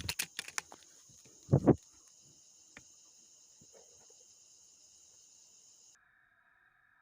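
Steady high-pitched insect buzz with a few clicks in the first half-second and a loud, dull double thump about a second and a half in. Near the end the insect buzz cuts off suddenly and a fainter steady tone takes its place.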